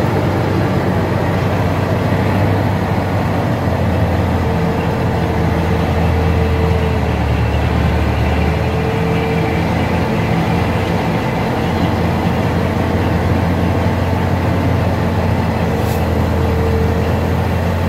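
Heavy diesel truck engine labouring up a steep dirt grade under a load of stone blocks, heard from inside the cab: a steady low drone with a faint whine that comes and goes.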